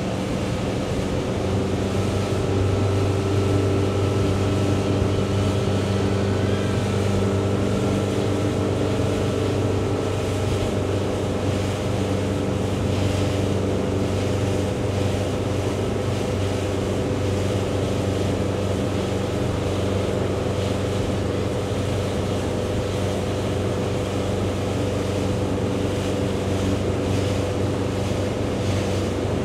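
Motorboat engine running steadily under way, a constant hum with rushing water and wind noise over it.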